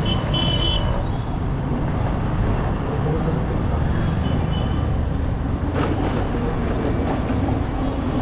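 Steady road traffic noise of vehicles moving past, with a few short high tones in the first second and a sharp click a little before the end.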